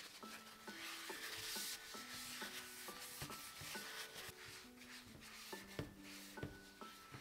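A paper towel rubbing oil around the inside of a silicone loaf mould: a soft, uneven scraping. Quiet piano-like music plays underneath.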